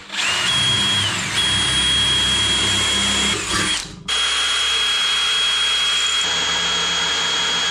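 DeWalt cordless drill boring through steel, a steady high-pitched whine under load. It eases briefly about a second in, stops for a moment around four seconds, then starts again and runs steadily.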